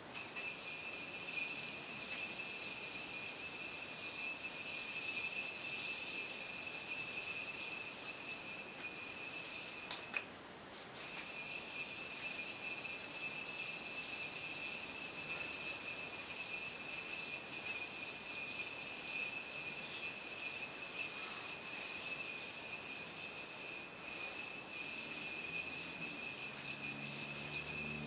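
Bounty Hunter yoyo spinning on its string: a steady high whine with a hiss over it. It cuts off with a click about ten seconds in and starts again about a second later.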